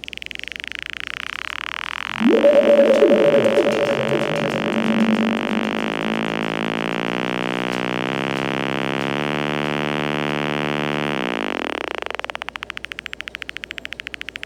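Homemade analog sound-effects circuit making electronic noise. Filtered hiss sweeps downward, then a loud buzzy synth tone jumps between several pitches in steps for about nine seconds. Near the end the tone gives way to hiss that stutters rapidly.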